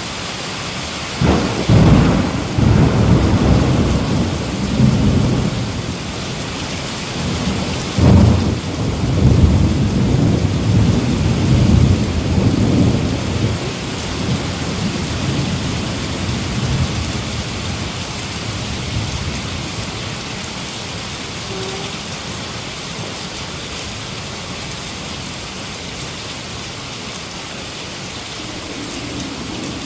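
Heavy rain falling steadily, with two thunderclaps, about a second in and about eight seconds in, each rolling on as a low rumble for several seconds.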